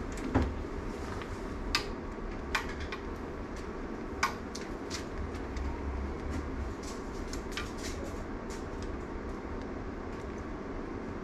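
Steady low room hum with a few scattered light clicks and clinks, the sharpest about half a second in.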